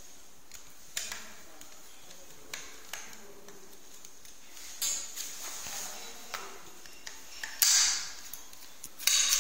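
Screwdriver backing out the small screws that hold a hard disk to its metal bracket, with scattered clicks and light metallic knocks as the drive and bracket are handled; two louder knocks come near the end.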